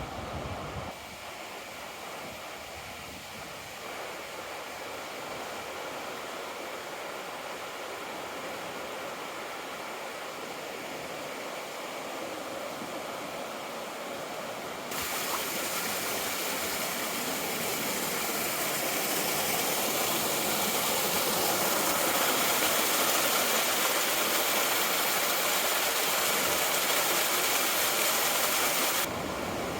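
Rushing water of a mountain river gorge, a steady hiss, stepping up sharply to a louder rush about halfway through and dropping back just before the end.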